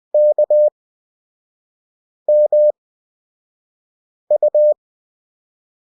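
Morse code practice tone, a single steady beep keyed in three letters with long gaps between them: K (dah-dit-dah), then M (dah-dah), then U (dit-dit-dah). The letters are sent at 20 WPM character speed with Farnsworth spacing.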